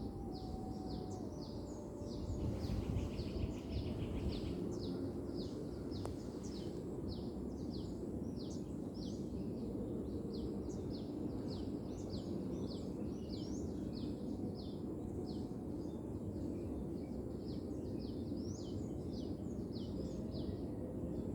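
Small birds chirping: a steady run of short, high chirps, two or three a second, over a constant low background noise.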